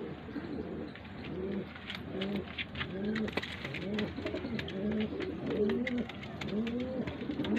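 Red Amritsari pigeons cooing over and over, a string of low rolling coos, each rising and falling, with scattered light clicks.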